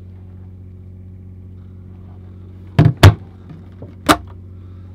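RV cabinet doors being pushed shut by hand, their catches clicking: two sharp clicks close together about three seconds in, then a third a second later, over a steady low hum.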